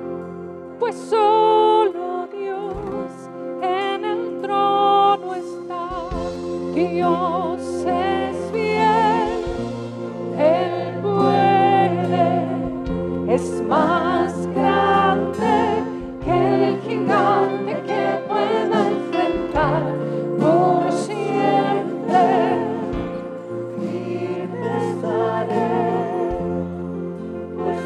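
Live worship band playing a song: a woman singing the lead with vibrato over strummed acoustic guitar and electric guitar, with low bass notes that change every couple of seconds.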